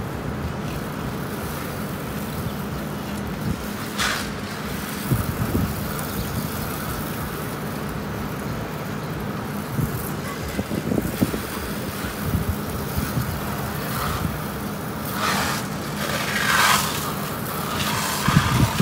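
Pressure washer running with a steady hum, its water spray hissing now and then as it hits the truck.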